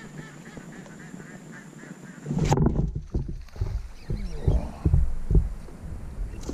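Ducks quacking and splashing on the river, faint at first, then loud splashing and calls from about two and a half seconds in.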